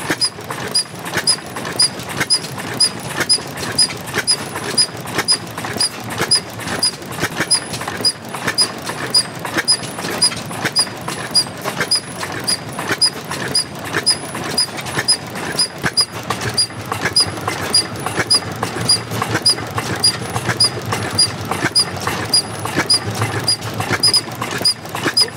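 Old stationary engine running, with a short high squeak repeating evenly about three times a second over its knocking beats.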